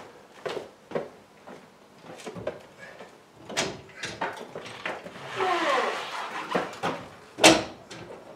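Trolley jack being let down and pulled out from under the car: scattered metal knocks and clunks, a creaking squeal that falls in pitch about five seconds in, and one loud knock near the end.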